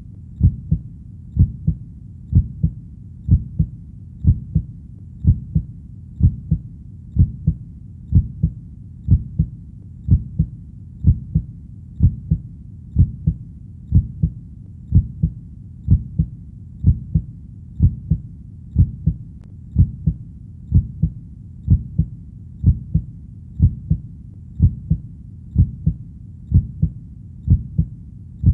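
A slow, steady heartbeat: pairs of low thuds (lub-dub), about one pair a second, evenly spaced.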